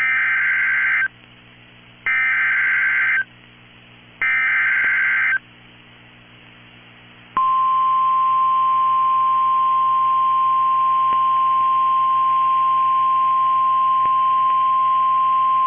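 Emergency Alert System warning tones from NOAA Weather Radio: three one-second bursts of screeching SAME data header, two seconds apart, then after a pause a single steady high tone, the 1050 Hz weather-radio warning alarm, which begins about seven seconds in and holds. They signal an incoming severe thunderstorm warning.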